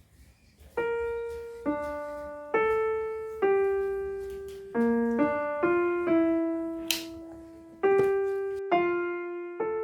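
Background music: a slow, gentle piano melody, single notes struck about once a second and fading, starting just under a second in.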